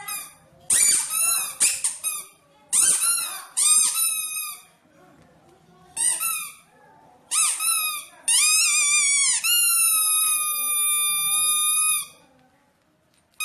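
Rubber squeeze toy squeaking: a run of short, high-pitched squeaks, then one long steady squeak of nearly four seconds that stops suddenly.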